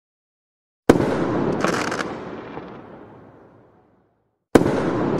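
An added bang sound effect: a sudden burst about a second in whose noise dies away over about three seconds, then the same burst again near the end.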